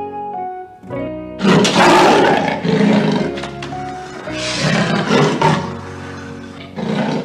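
A big cat giving a series of loud, rough roars, the first about a second and a half in and the last near the end, over background music with steady tones.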